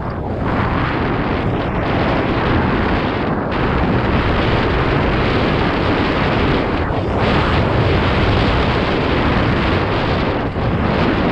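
Wind rushing over the microphone of a camera on a mountain bike being ridden along a dirt trail: a loud, steady rush with no letup.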